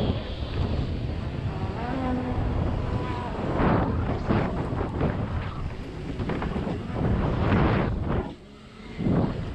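Wind buffeting a helmet-mounted camera's microphone as a BMX bike rolls at speed over a dirt-jump trail, with the rumble of its tyres on dirt and leaves, in surges. It goes briefly quieter a little after eight seconds in, then picks up again.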